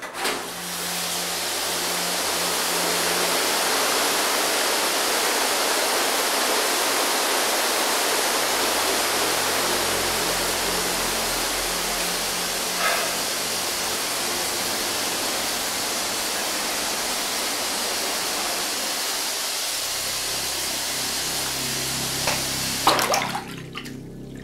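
Shower running: a handheld shower head spraying water in a steady, even hiss. It is turned on at the mixer tap at the start and shut off near the end, after a couple of clicks.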